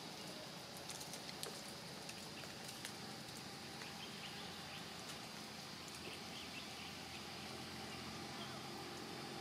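Faint outdoor background: a steady hiss with scattered small clicks, mostly in the first few seconds, and faint high chirps.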